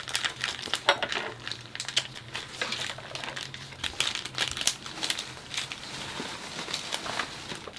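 Irregular crinkling and crackling, made of many small sharp crackles scattered throughout, as something crisp is handled.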